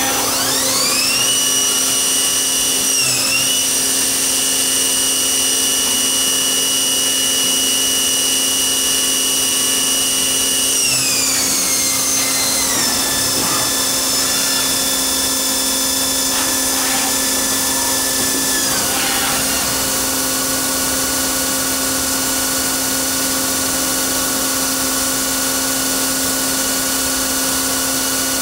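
Tornos Schaublin 65 CNC lathe's spindle drive whining as it spins up over about the first second and a half, holding a steady pitch, then slowing in steps, dropping in pitch about eleven, thirteen and nineteen seconds in. A steady low hum from the machine runs underneath.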